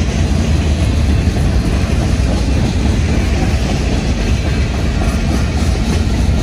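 Freight train's tank cars and covered hoppers rolling past, a loud, steady rumble of steel wheels on the rails.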